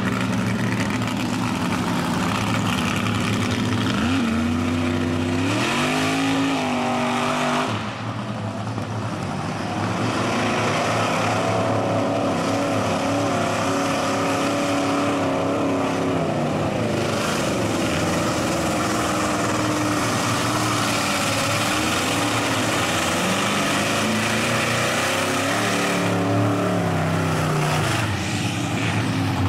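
Engines of lifted mud-bogging trucks running hard at high revs as they drive through deep mud. The revs climb and fall a few times, most plainly about five seconds in and again near the end.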